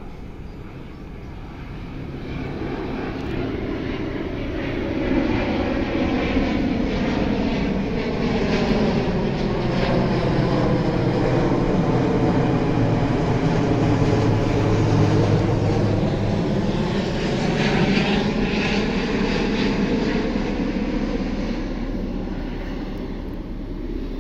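Jet airliner's engines passing low overhead on landing approach. The noise swells over the first few seconds, holds loud through the middle and slowly fades near the end.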